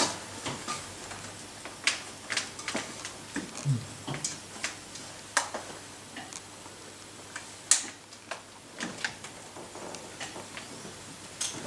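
Scattered sharp clicks and knocks at irregular intervals, about one or two a second, over a faint steady room background; the loudest is a single sharp knock near eight seconds in.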